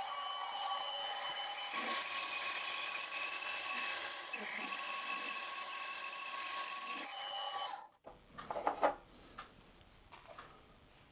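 Drill bit turning in a machine spindle and cutting into a cast collar, a steady running sound with several held high tones. It stops abruptly about eight seconds in, followed by a few light clicks and knocks.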